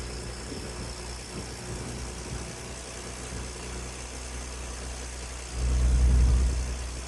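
Turbocharged Ford Ranger's engine idling through newly fitted equal-length downpipes and high-flow catalytic converters. It is briefly louder about five and a half seconds in, for about a second.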